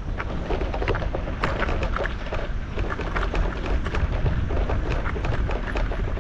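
Mountain bike riding over a rough forest trail: wind rumbling on the microphone, with many irregular clicks and rattles from the tyres and bike over the ground.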